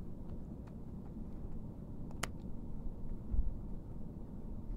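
A cat licking and grooming itself, with faint small ticks over a low steady rumble and one sharp click a little over two seconds in.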